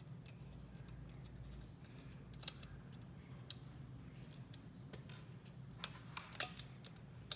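Scattered sharp clicks and taps of a small screwdriver and fingers on the plastic fan shroud and metal screws of an AMD stock CPU cooler as its fan screws are being loosened, more of them near the end, over a faint low hum.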